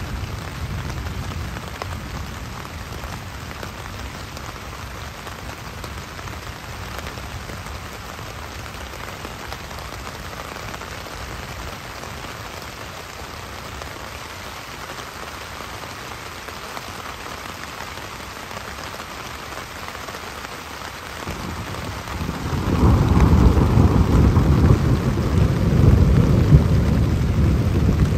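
Heavy rain falling on a hammock tarp and the surrounding forest in a thunderstorm. About three-quarters of the way through, a long, loud roll of thunder rumbles in and carries on to the end.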